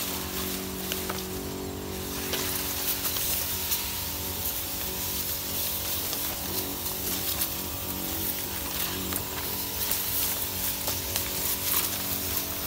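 Liquid fertiliser hissing steadily from a sprayer lance while the sprayer's small engine runs at an even pitch underneath. Scattered light clicks and brushing from cane leaves against the lance.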